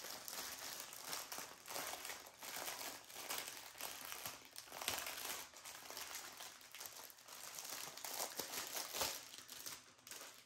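Plastic packaging crinkling continuously and irregularly as hands unwrap a bundle of bagged diamond-painting drills and pull off its clear plastic sleeve.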